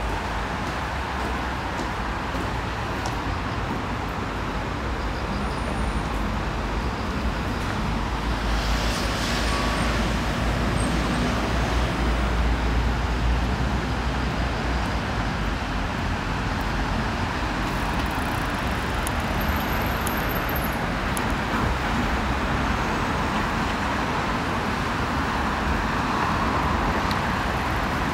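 City street traffic noise: a steady wash of cars passing on nearby roads, with a heavier low rumble roughly a third of the way in.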